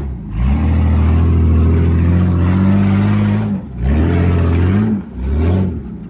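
Lifted Jeep Grand Cherokee's engine revving under load as it climbs a rock ledge. A long pull rises in pitch, then the throttle is lifted briefly about three and a half seconds in, followed by shorter bursts of revving with brief pauses between.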